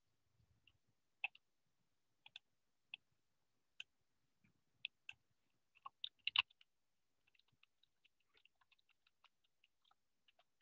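Faint computer mouse and keyboard clicks: a few scattered clicks, the loudest cluster about six seconds in, then a run of quick, light keystrokes as a search query is typed.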